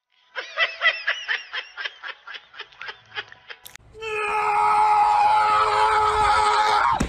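A quick run of short, high-pitched, laugh-like squeals, about four a second, for some three seconds. Then, after a sharp click, comes a loud drawn-out "aaaah" scream that holds for about three seconds and cuts off suddenly.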